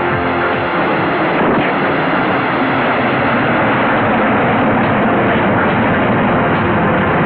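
Loud, steady rushing noise with faint background music underneath.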